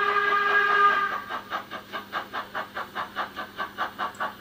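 LMS Class 8F steam locomotive sound file played by a DCC sound decoder through a model locomotive's speaker. A steam whistle is held until about a second in, then the exhaust chuffs steadily at about five beats a second.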